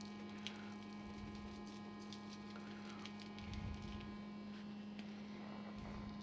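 Dry spice rub shaken from a shaker onto raw pork slices on paper: faint scattered ticks and patter over a steady electrical hum, with a soft knock a little past the middle.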